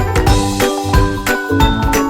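Upbeat background music with a steady beat and a high melody over it.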